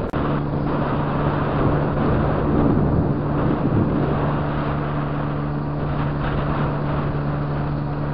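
Vehicle engine running at a steady drone under a loud rushing rumble of wind and motion noise.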